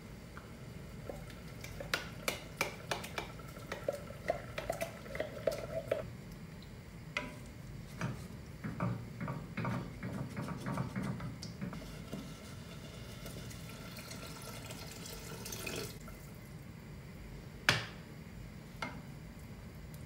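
Cooking at a stovetop: a metal spoon clicking and scraping against a can and a stainless steel pot, with wet stirring sounds in the pot, then a single sharp knock near the end.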